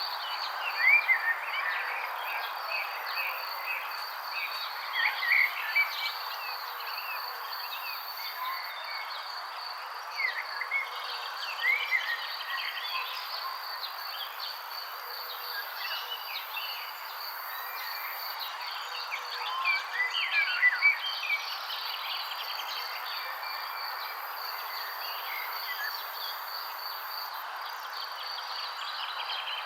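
Songbirds chirping in short, scattered calls, with louder bursts now and then, over a steady high insect trill and a constant hiss.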